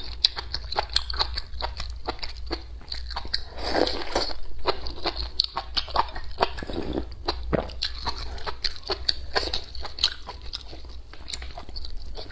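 A person chewing and biting crisp food close to the microphone: many small, irregular crunches and clicks.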